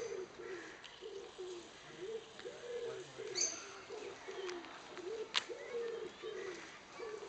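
A bird cooing in a steady run of short, low notes, with a few brief high chirps from a small bird and a single click about five seconds in.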